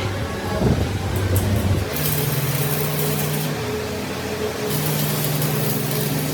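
Workshop machinery running with a steady low hum. About two seconds in the hum shifts higher and comes with a hiss, drops back briefly, then returns.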